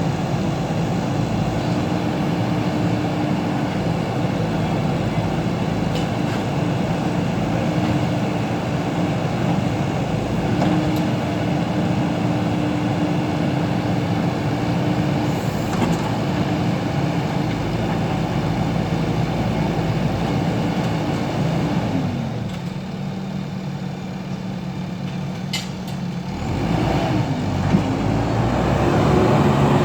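JCB backhoe loader's diesel engine running at working revs, dropping back to a lower idle about two-thirds of the way through, then revving up again near the end.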